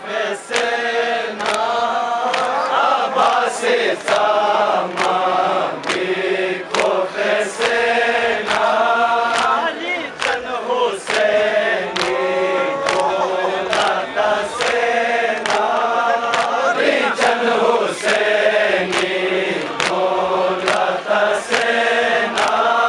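A group of men chanting a Balti noha in unison, a mournful melodic lament, with a steady beat of sharp hand slaps on the chest (matam), about one to two a second.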